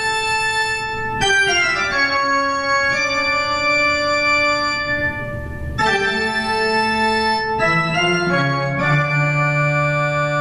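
Intro music played on an organ: loud, sustained chords that change every couple of seconds, with a downward slide about a second in.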